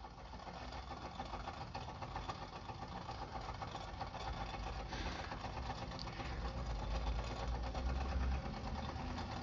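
Wilesco toy steam engine running smoothly under steam, a rapid, even beat that grows gradually louder.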